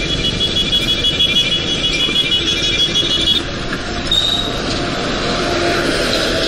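Road and wind noise of a motorbike riding along a highway. A high, steady tone runs through the first three seconds or so and cuts off suddenly.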